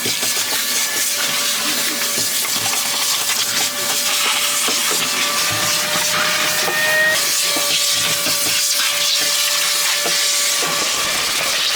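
A cleaning machine's motor running with a steady rushing hiss and a whine whose pitch shifts slightly about seven seconds in.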